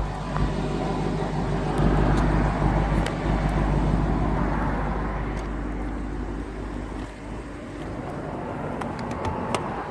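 Lexus LC500's 5.0-litre V8 running, its exhaust louder for a couple of seconds about two seconds in, then easing back to a lower steady note.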